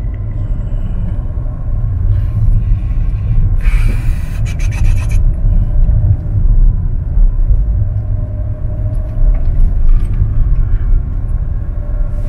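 Car engine and road rumble heard from inside the cabin while driving up a winding hill road, steady and low. About four seconds in comes a brief rattling hiss lasting a second or so.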